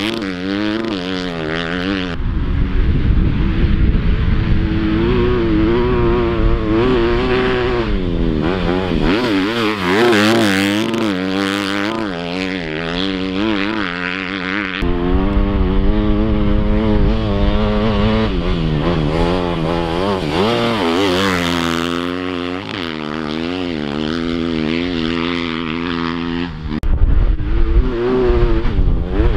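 2020 Honda CRF250R's single-cylinder four-stroke engine through a Yoshimura RS-9T full exhaust system, revving up and down repeatedly as the dirt bike is ridden hard through turns in sand. It gets louder near the end.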